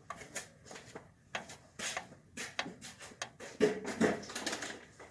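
Irregular light clicks, knocks and scrapes of car parts being handled.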